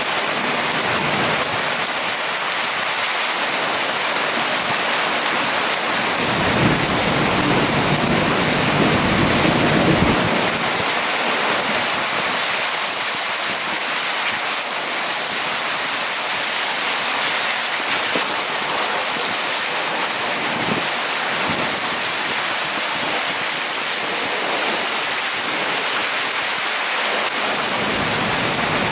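Heavy rain falling steadily, a loud even hiss, with a low rumble of thunder from about six to ten seconds in.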